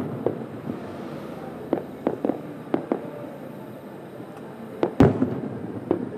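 Aerial firework shells bursting, heard from about a kilometre away: a scatter of lighter bangs in the first three seconds, then the loudest bang about five seconds in, and another about a second later, each with an echoing tail.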